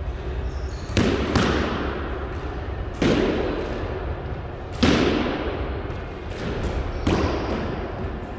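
Squash ball shots in a hard-walled court: sharp cracks of the ball off the racket and walls, each ringing out in the court's echo. A quick pair comes about a second in, then single shots roughly every two seconds, five strikes in all.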